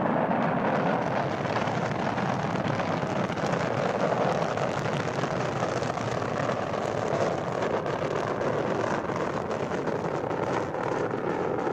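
Rocket launch roar: a loud, steady, rumbling rush of engine exhaust that holds at one level throughout. It is an old recording, dull and with no high end.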